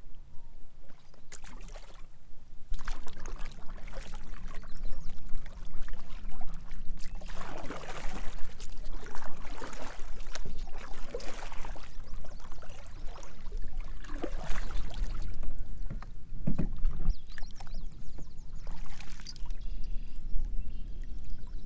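Kayak paddle working the water: irregular splashes and drips, thickest in the middle stretch, over a low steady rumble.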